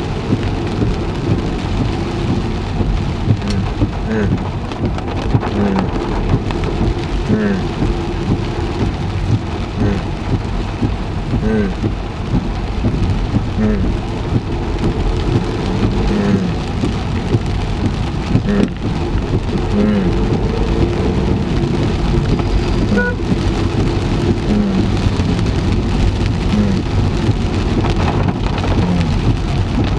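Heavy rain falling on a car, heard from inside the car, with a steady low hum and a soft regular beat about every second and a half.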